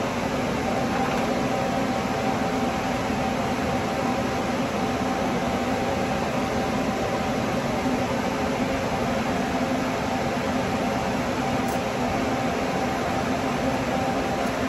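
Steady mechanical hum of a running fan or air-handling unit, an even whir with a few constant tones in it that does not change.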